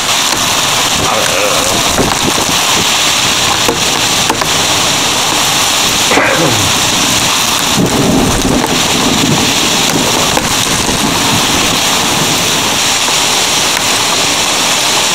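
Hailstones about 1.5 cm across pelting a window ledge in a violent thunderstorm, with strong wind. The result is a loud, steady rush of noise dotted with many sharp hits.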